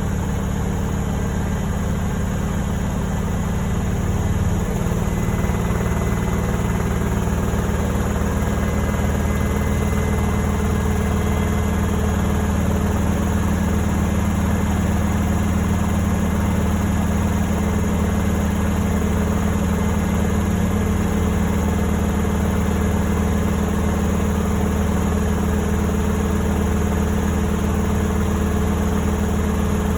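Beko washing machine running with a steady low mechanical hum, which shifts and grows slightly louder about four to five seconds in, then holds steady.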